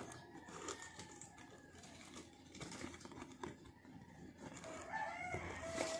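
Cardboard box of a home WiFi kit being opened by hand: faint rustling and crinkling of the packaging with light taps and clicks, and a brief wavering tone near the end.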